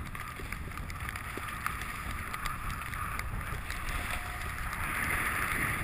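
Rushing hiss of riding gear sliding over snow, swelling near the end, over a low rumble of wind buffeting the microphone.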